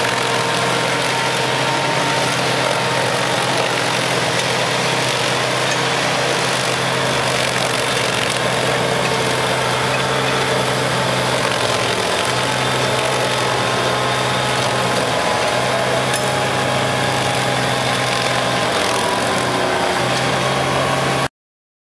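Stump grinder's engine running steadily at a constant speed, then cutting off abruptly near the end.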